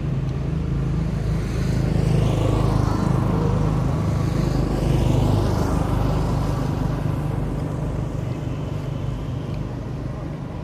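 A motor vehicle passing on the road, its engine and tyre noise swelling a couple of seconds in and fading away over the second half, over a steady low rumble.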